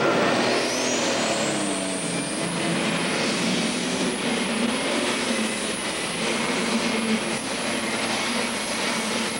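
Super stock pulling tractor running at full throttle under load as it drags a weight-transfer sled, with a high turbocharger whine that climbs over the first second and a half and then holds steady.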